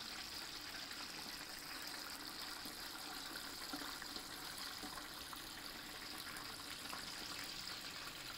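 Chicken drumsticks deep-frying in a pot of hot oil: a steady sizzling and bubbling.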